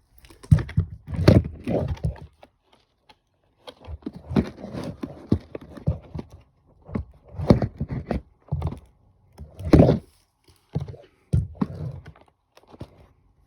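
Irregular knocks and thumps, several in quick clusters, with handling noise between them.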